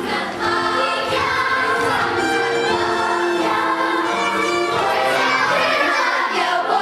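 A chorus of young voices singing a show tune together, with long held notes.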